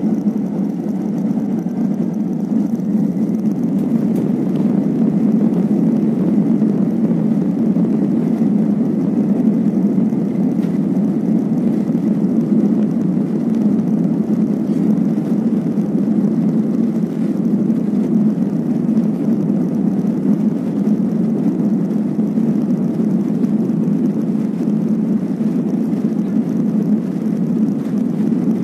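Steady low rumble of a jet airliner's engines and rolling, heard from inside the passenger cabin as the plane moves along a wet runway; it swells a little in the first few seconds and then holds level.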